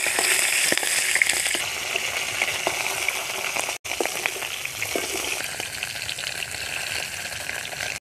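Katla fish heads frying in hot mustard oil in a wok, a steady sizzle on their second side, with scattered light clicks of a metal spatula against the pan. The sound cuts out for an instant about four seconds in.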